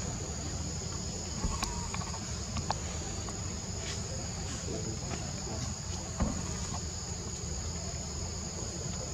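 Steady high-pitched drone of an insect chorus, over a low rumble, with a few short clicks and one sharper click about six seconds in.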